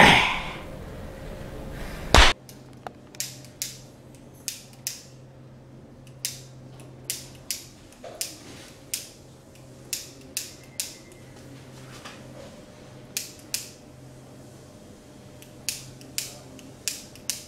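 One loud sharp smack about two seconds in, then a long run of short, sharp clicks and pops at an uneven pace of one or two a second.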